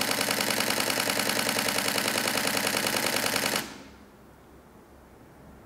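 Nikon D500 DSLR firing a continuous high-speed burst: shutter and mirror clattering at about ten frames a second, stopping abruptly about three and a half seconds in as the shutter button is released.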